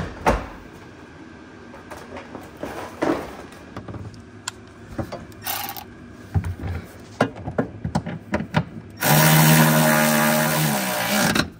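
Cordless power ratchet running for about two seconds near the end, a steady motor whine as it drives a seat-mounting bolt home, then stopping abruptly. Before it come scattered clanks and knocks of the van's front seat being set into place.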